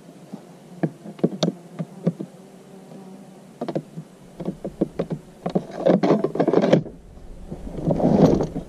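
A metal locking bar knocking and rattling against hard plastic toolboxes as it is handled and slid through their lock holes. Scattered clicks run through the first half, with denser rattling about six seconds in and again near the end.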